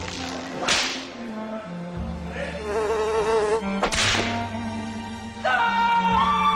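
An insect-like buzzing with a wavering pitch, cut by two quick swishes. About five seconds in, a sudden loud, high, sustained tone begins.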